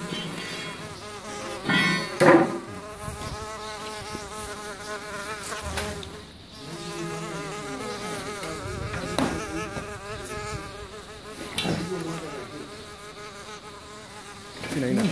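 Small motorised insecticide fogger running with a steady, slightly wavering buzz, blowing mist through its nozzle into a drain pit. A few sharp knocks sound over it, the loudest about two seconds in.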